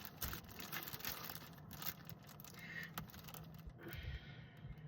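Rustling and light clicks as items are handled and pulled out of a box of craft-store clearance merchandise, thinning out near the end.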